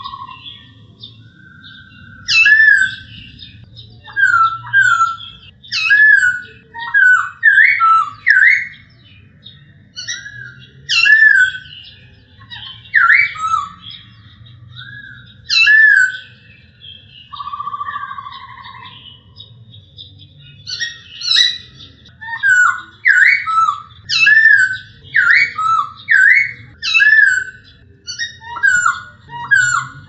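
Male black-throated laughingthrush singing: loud, clear whistled notes in repeated phrases. A longer, lower held whistle comes a little past halfway, and the notes come in quicker runs near the end.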